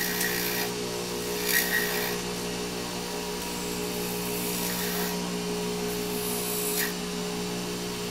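Small lathe motor humming steadily while a hand-held blade shaves the spinning iris disc in its chuck, with short scraping strokes several times, the sharpest about a second and a half in and just before seven seconds. The blade is thinning the disc's outer edge.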